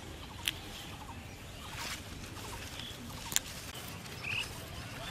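Outdoor field ambience with faint, scattered high bird chirps over a steady low background, broken by two sharp clicks about three seconds apart.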